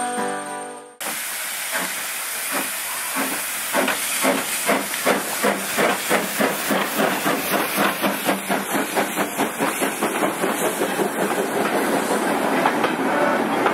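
Small saddle-tank steam locomotive working a train past: steam hissing, with an even beat of exhaust chuffs that quickens from about three to about four a second. Near the end the beat gives way to the rumble of carriages rolling by.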